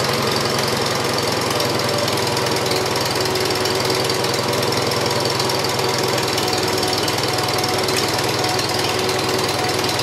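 Farmall 140's four-cylinder gasoline engine idling steadily at low throttle, still cold, so it will not settle into a really low idle yet.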